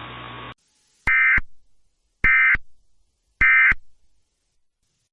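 Emergency Alert System SAME end-of-message code: three short, harsh digital data bursts about a second apart, marking the end of the tornado-warning broadcast. A steady hum before them cuts off about half a second in.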